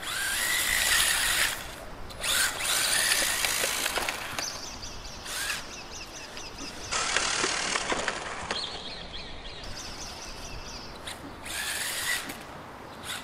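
Brushless electric motor of a 1/16-scale ZD Racing EX-16 RC drift car whining in repeated bursts of throttle as the car is driven about, the pitch rising and falling with each burst.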